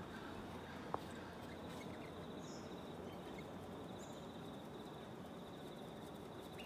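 Faint outdoor ambience: a steady, high insect trill runs throughout, with two faint high bird chirps in the middle and one small click about a second in.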